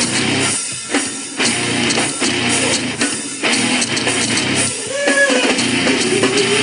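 Rock music with distorted electric guitar and a drum kit.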